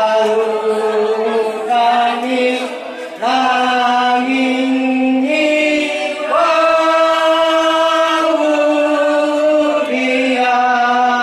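A man's voice chanting a ceremonial chant into a microphone, amplified through a PA. It moves in long held notes, in phrases of two to four seconds, and steps up in pitch about halfway through.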